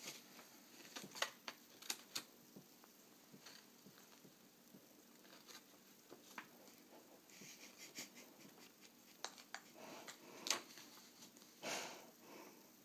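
Faint rustling and light clicks of paper being handled, with quiet room tone between.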